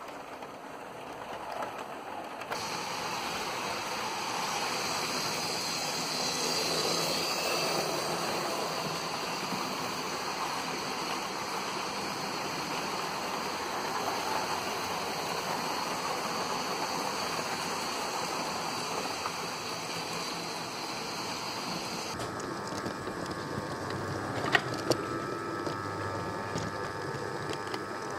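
OO gauge model train running on the track: a steady rolling rumble of wheels on rail with electric motor hum. About 22 seconds in the sound changes to a higher, whining motor tone, with a couple of sharp clicks soon after.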